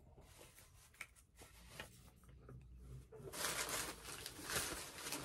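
Brown packing paper crinkling and rustling as it is pulled out of a cardboard shipping box, starting a little over three seconds in after a few faint handling clicks.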